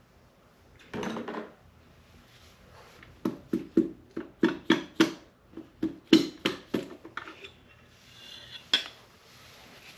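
Hand tools clinking and tapping against the metal parts of a Model A Ford engine. A quick run of about a dozen sharp metallic knocks comes from about three to seven seconds in, two or three a second, and a single knock comes near the end.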